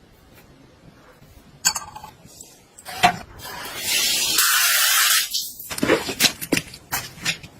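Clicks and knocks of small objects being handled, with a loud hiss lasting about a second and a half in the middle.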